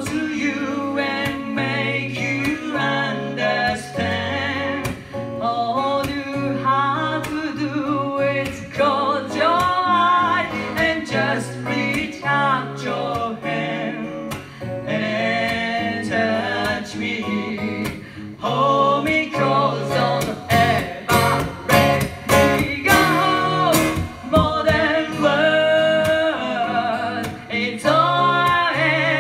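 A woman singing a song into a handheld microphone, accompanied by a strummed acoustic guitar, with the strumming hardest about three quarters of the way through.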